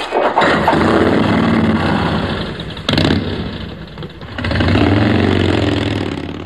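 Motorcycle engine revving and accelerating away, its pitch climbing and falling twice, with a sudden loud onset about three seconds in.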